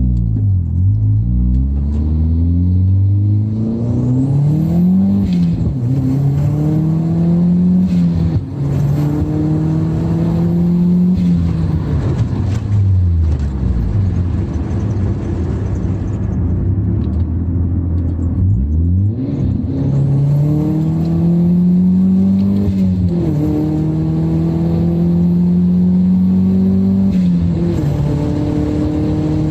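Turbocharged 1ZZ-FE four-cylinder engine of a 2000 Toyota Celica GT under hard acceleration. The revs climb through a gear, drop at the shift and climb again, several times over.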